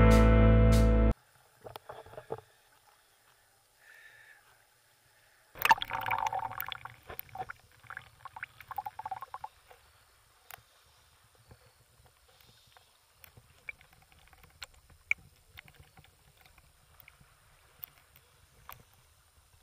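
Background music that cuts off about a second in, followed by faint, irregular water sloshing and splashing with scattered small clicks, busiest for a few seconds in the middle.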